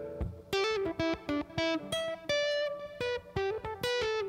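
Electric guitar playing a quick single-note lead line through a gain amp, about three to four picked notes a second. It is the neck-position Eldred-mod setting of an Esquire-wired Telecaster, with a fixed tone cap and the volume backed off a little, giving a darker, humbucker-like 'woman tone'.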